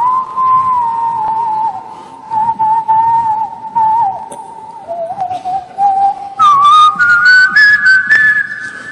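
A man whistling a melody into a microphone, amplified on stage: long held notes that waver and step gradually lower, then leap to a higher, louder phrase about six and a half seconds in, with quick clicks along with it.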